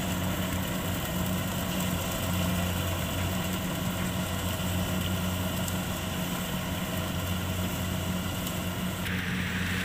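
Kubota DC-70 combine harvester's diesel engine running at a steady speed.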